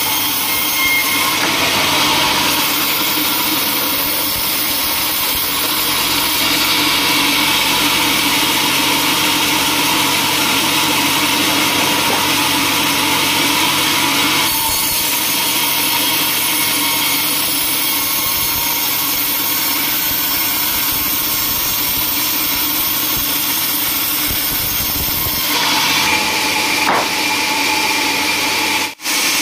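Band sawmill blade running and cutting lengthwise through a teak log: a steady, loud whir of the blade in the wood. The sound changes character about halfway through and again near the end, and breaks off for a moment just before the end.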